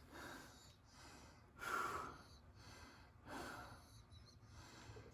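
Faint breathing of a man, a few soft breaths about a second and a half apart, otherwise near silence.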